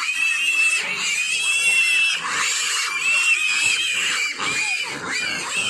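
Pigs squealing, many high-pitched overlapping squeals from a pen of piglets at feeding time, squealing for their food.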